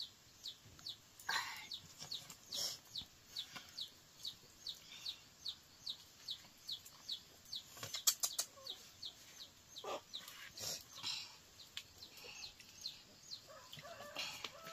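Chick peeping over and over, about three short, high, falling peeps a second, with a few faint knocks and a brief scrape in between.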